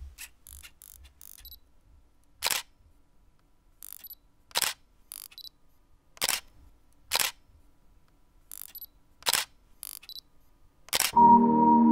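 Single-lens reflex camera shutter clicks, about six loud single clicks spaced irregularly one to two seconds apart, with fainter small clicks between them. Near the end a loud, sustained ringing musical tone starts.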